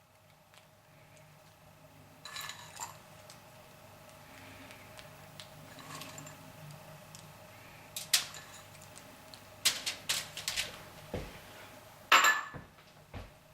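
Scattered light clicks and taps of kitchen utensils and containers being handled while chopped pre-cooked bacon is added, with a quick cluster about ten seconds in and a louder tap near the end, over a faint steady hum.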